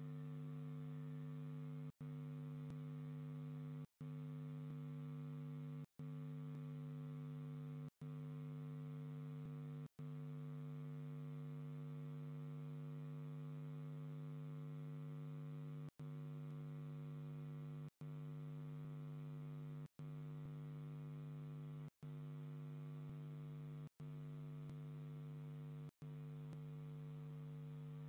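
Steady electrical hum, a stack of even tones strongest low down, picked up in the audio of a nest-box camera. It is broken by brief dropouts about every two seconds.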